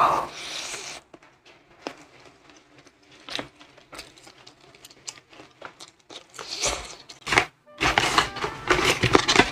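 A bite into crispy, sauce-coated fried chicken with a loud crunch at the start, then chewing clicks and the tearing of meat by a gloved hand. From about eight seconds in, a dense crackling of paperboard as fried-chicken boxes are opened.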